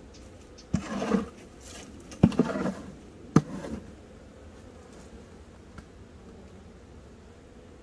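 Honeybees buzzing close past the microphone at a hive: three brief loud buzzes about a second apart, each opening with a sharp tick.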